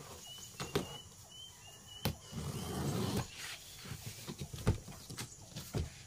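Box cutter slitting the packing tape on a large cardboard carton and the cardboard flaps being pulled open: scraping and rustling with scattered clicks, a longer scrape about two seconds in, and a dull knock about three quarters of the way through.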